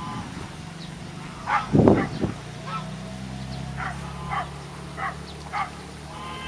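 Short animal calls, barks or yelps, repeated every half-second to a second. A heavy low thump comes just before the two-second mark, and a steady low hum runs on after it.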